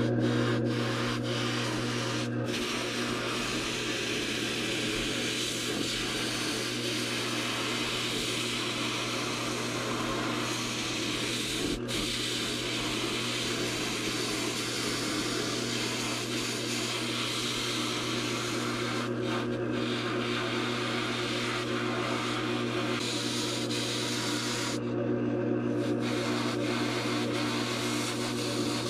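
Grizzly wood lathe motor running steadily at about 540 rpm while a hand-held turning tool shaves a spinning foam casting blank, a continuous scraping hiss over the motor's hum. The cutting noise thins out for a moment a few seconds before the end.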